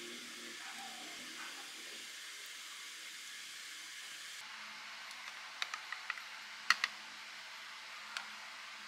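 Faint steady hiss of kitchen room noise, then a cluster of light clinks of a ceramic spoon against small ceramic dishes as food is spooned out, with one more clink near the end.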